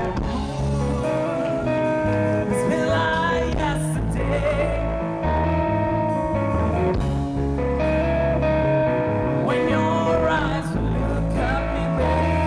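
Live rock band playing: electric guitar and bass guitar, with a male voice singing over them at points.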